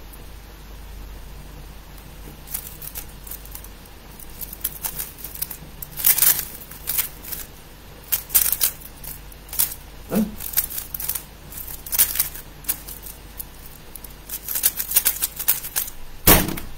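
Quick, irregular plastic clicking of a 3x3 speedcube being turned during a timed solve, starting a couple of seconds in, with one sharp loud knock near the end.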